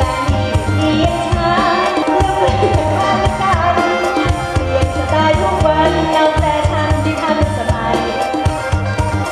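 Live mor lam band music, loud, with drums keeping a steady beat under a melody.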